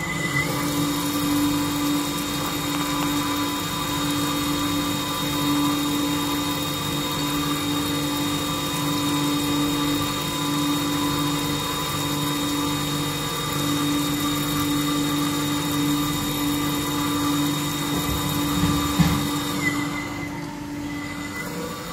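Wire EDM (spark-eroding wire saw) machine running as it cuts thin brass sheet: a steady hum with a strong low tone and a few fainter higher tones, over the hiss of the water flushing the wire. Near the end the high hiss drops away.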